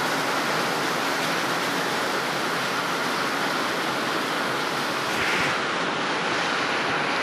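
Steady rain: an even, continuous hiss of rain on corrugated metal roof sheets, with runoff splashing into plastic buckets.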